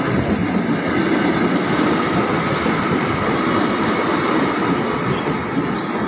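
KAI Commuter (KRL) electric train moving along the platform, its wheels and running gear making a steady, even noise on the rails.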